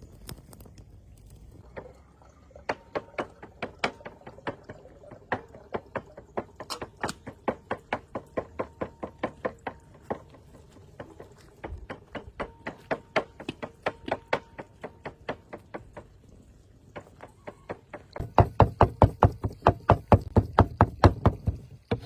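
Rapid, rhythmic knocking at about four strokes a second, in two runs, the second louder and a little faster.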